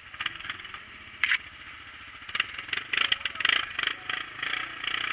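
Honda side-by-side's engine running as the machine drives, with a sharp knock about a second in and a run of clattering bumps in the middle.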